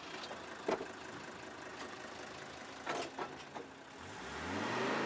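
A few short knocks, then a car drives past: its engine and road noise swell to a peak near the end and begin to fade.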